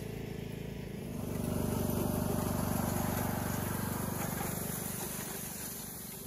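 John Deere E110 riding mower's engine running as it drives past, getting louder about a second in and fading toward the end, with a homemade drag grader weighted with concrete blocks scraping over gravel behind it.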